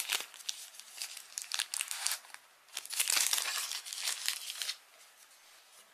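Thin plastic bag crinkling and rustling in the hands as an earbud charging case is pulled out of it, in two spells, the second louder.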